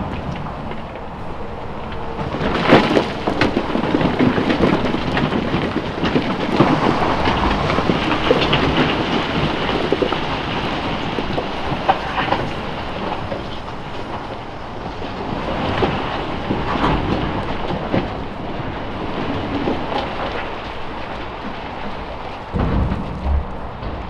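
Rocks sliding and tumbling out of a Volvo FH 540 dump truck's raised tipper body: a continuous rumbling clatter with heavier knocks now and then as large rocks drop onto the pile. The truck's engine runs underneath as a low steady hum.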